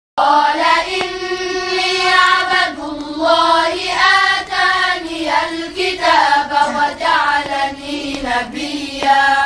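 A group of children chanting Quran verses together in unison, a melodic recitation with long held notes in phrases of a couple of seconds.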